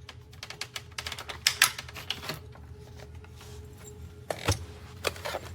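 Clicks, taps and clatter of hard vacuum parts being handled, with the sharpest knocks a little after one and a half seconds and again near four and a half seconds. A faint steady hum runs underneath.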